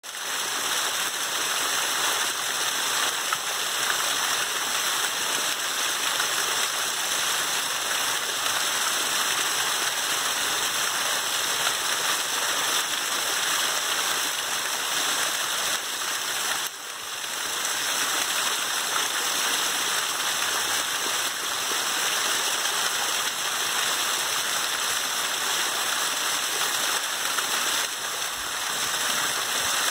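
Water spilling over a cascade of stacked boulders and splashing into a shallow pool below: a steady rushing splash, dipping briefly a little past halfway.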